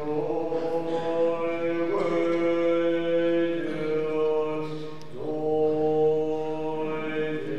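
A male monk's voice chanting Tibetan Buddhist liturgy in long held notes, moving to a new pitch every second or two.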